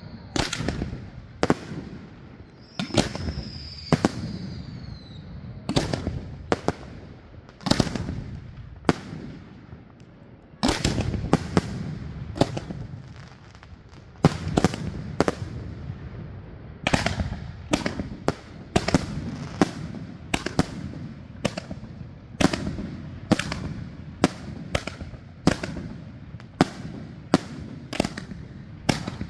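Aerial firework shells bursting overhead in a long string of sharp, echoing bangs, with a falling whistle a few seconds in. The bangs come irregularly at first, then quicken to about two a second in the last third.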